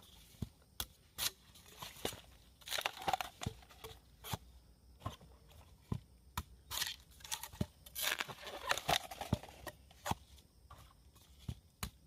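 A long knife blade cutting through a fresh green bamboo stalk, giving irregular sharp cracks and crunches, several a second.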